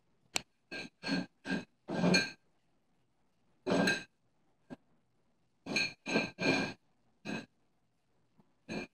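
An upturned drinking glass scraping and clinking across a hard floor in short pushes as a cat paws at it, about a dozen times. Each scrape carries a faint glassy ring, and the longest come about two and four seconds in.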